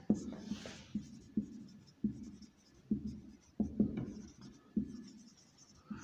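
Marker pen writing on a whiteboard: a run of short, irregular strokes with brief pauses between them.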